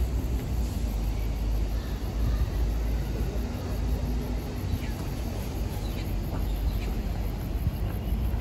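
Outdoor street ambience: a steady low rumble with a few faint, short high chirps.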